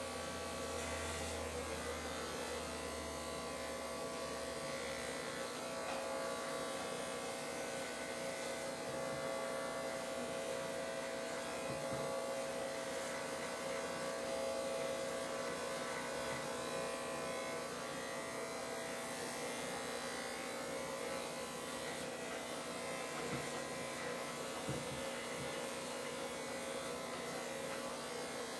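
Corded electric hair clippers buzzing steadily while shaving hair close to the scalp.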